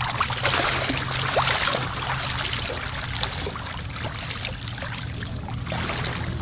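Shallow seawater at the shoreline splashing and trickling, with many small splashes over a steady low rumble.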